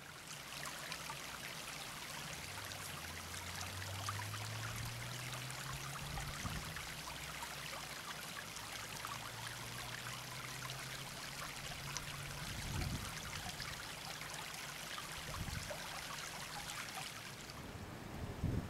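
A small stream of water tumbling down through grass and bamboo undergrowth, a steady rushing splash that stops abruptly near the end.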